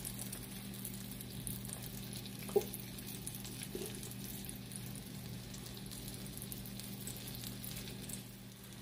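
Oil sizzling steadily around a flour-and-egg-coated pork embutido roll shallow-frying in a nonstick pan on medium heat as it browns to golden, with a single sharp click about two and a half seconds in. A steady low hum runs underneath.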